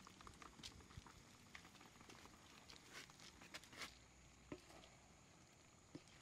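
Faint, scattered clicks and scrapes of cooked meat chunks being tipped from a plastic basin into a wok and pushed around with a wooden spatula.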